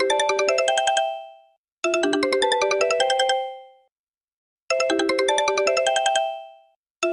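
Sony Ericsson W150i mobile phone ringing for an incoming call with its original Sony ringtone: a quick melody of bright electronic notes, played over and over with short pauses between the phrases.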